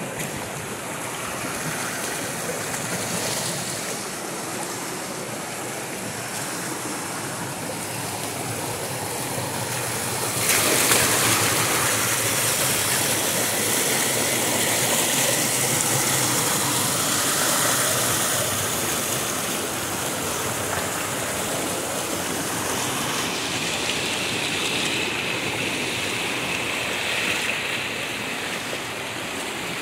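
Steady rush of flowing water, which grows louder and more hissing about ten seconds in.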